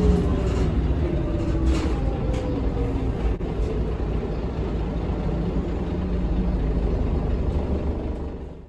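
Cabin noise of a 1986 MAN SL202 city bus with a ZF Ecomat automatic gearbox, heard from inside: a steady low engine and drivetrain rumble with a whine that falls in pitch over the first few seconds, fading out near the end.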